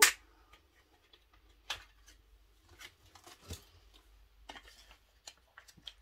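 Light handling noises: a sharp click at the start, then scattered soft clicks and rustles as a small packet of mica pigment powder is handled.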